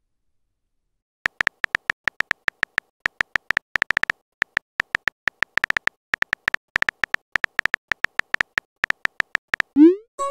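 Simulated phone-keyboard typing clicks from a texting-story app: short sharp ticks at an uneven pace of several a second, starting about a second in as a message is typed. Near the end comes a quick rising swoosh as the message is sent.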